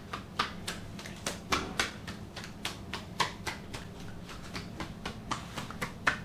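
A quick, fairly even series of light, sharp taps, about three or four a second, with now and then a stronger one.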